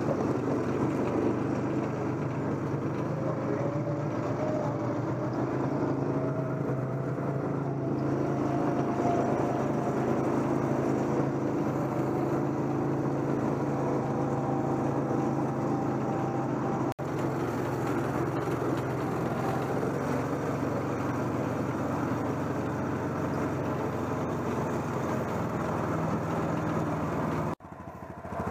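Side-by-side utility vehicle's engine running steadily as it drives over rough grass, heard close up from the vehicle itself. The sound briefly drops out twice, about two-thirds of the way through and again near the end.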